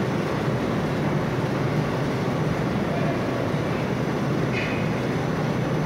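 Steady, loud, low rumble of a running belt conveyor and its chute machinery, with a brief faint higher sound about four and a half seconds in.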